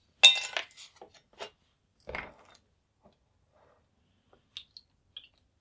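A plastic bottle of Dettol being handled and opened: a sharp plastic crackle just after the start, then a few smaller knocks and clicks, and only faint small sounds while the liquid is poured over the lamp parts in a plastic tub.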